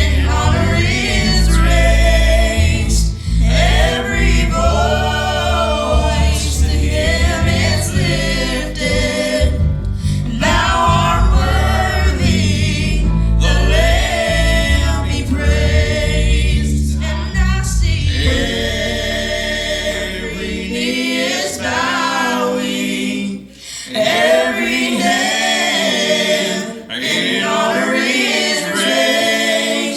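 A family vocal group singing a gospel song in harmony over an instrumental backing with a heavy bass. About two-thirds of the way through the backing drops out and the voices carry on unaccompanied.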